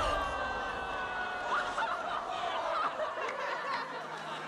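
Several teenagers laughing at once, mocking and jeering.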